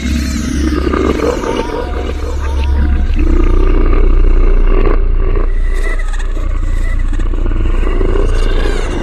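Designed demon-haunting horror effect: a deep, steady drone under rough, roar-like growling that swells to its loudest about halfway through.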